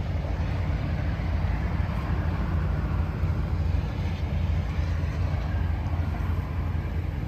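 Vehicle engine idling: a steady low rumble that does not change.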